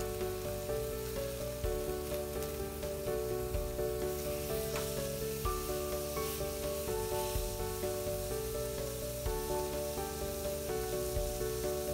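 Chuck eye roll steaks sizzling steadily in a hot stainless frying pan, and one is turned over with metal tongs partway through. Background music with changing melodic notes plays over the sizzle.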